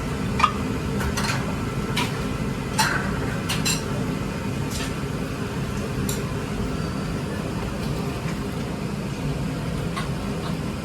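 Dishes and utensils clinking now and then, with several sharp clinks in the first four seconds and another near the end, over a steady low background hum.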